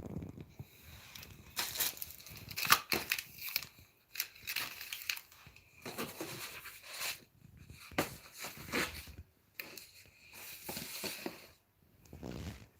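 Packaging being handled: crinkling and rustling in irregular bursts of a second or two, with short pauses between them.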